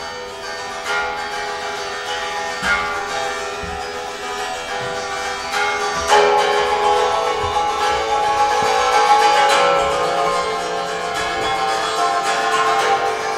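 Metal strings on a rack of stacked guitar necks struck with sticks by two players, many notes ringing over each other. Fresh strikes come about a second, two and a half and six seconds in, and it grows louder after about six seconds.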